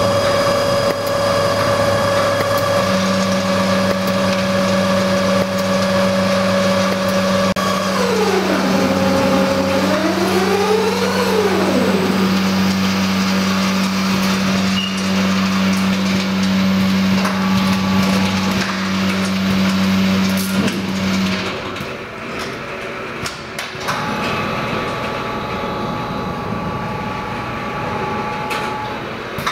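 JBF KW 765 automatic yarn ball-winding machine running: a steady hum and whine from its winding drives. About a third of the way in, one whine falls in pitch and then rises again. About two-thirds through, the sound drops a little quieter and a new steady whine sets in.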